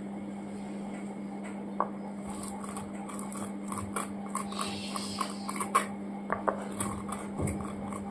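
Whole spice seeds (coriander, fennel, mustard, cumin and fenugreek) being ground by hand on a sil batta, a stone grinding slab worked with a stone roller. Short crackles and clicks of the seeds cracking under the stone start about two seconds in and grow more frequent, with a brief scraping rush near the middle.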